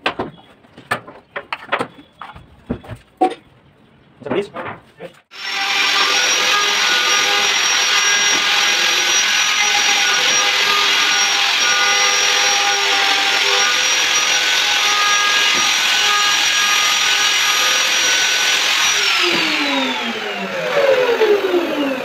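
A few sharp knocks and clicks of a brass mortise lock being handled and fitted into the edge of a wooden door. About five seconds in, a handheld electric wood router starts and runs steadily with a high whine as it is worked over the wooden door. Near the end it is switched off and winds down, its whine falling in pitch.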